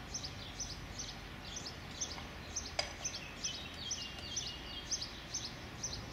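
A small bird chirping over and over, short falling chirps about twice a second, over a steady low background rumble. A single click comes near the middle.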